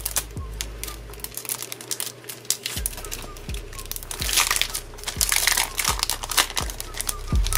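Paper and clear plastic sleeve crinkling and rustling as a sticker pack is pulled open by hand, with many small clicks. The crinkling grows denser about four seconds in. Soft background music with a steady low beat plays underneath.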